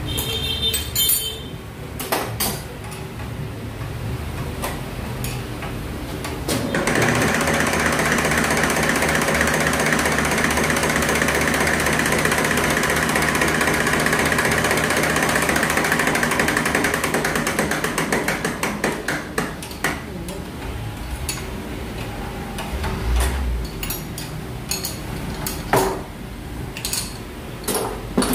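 Diesel injection pump test bench running a 6D16 inline injection pump, a fast, even mechanical rattle that starts abruptly about seven seconds in, holds steady, then winds down after about eleven seconds. Before and after it come scattered metal clicks and knocks of tools and fuel-line fittings, one sharp knock near the end.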